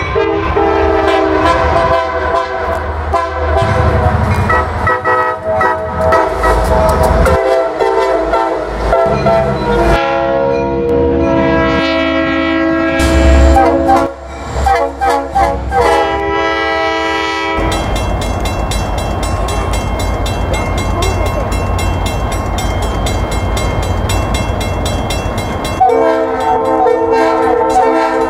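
Diesel locomotive air horns blowing repeated multi-note chords over the noise of a passing train. For several seconds after the middle the horn falls silent, leaving the rumble and clatter of the train, and then it sounds again near the end.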